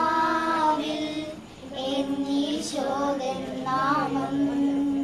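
High voices singing a slow devotional song in long held notes, in three phrases with a short break between the first and second.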